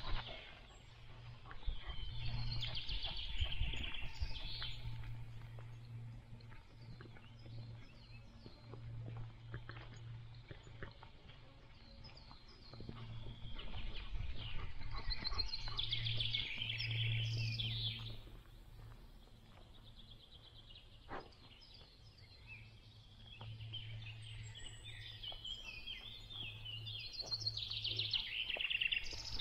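Woodland songbirds singing and chirping in three spells: a few seconds in, around the middle, and near the end. Underneath runs a steady low rumble with a few soft clicks.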